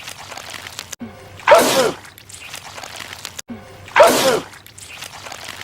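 A man sneezing twice, the same sneeze repeated about two and a half seconds apart. Each one is a short rising 'ah' followed by a loud, sharp burst that falls away in pitch.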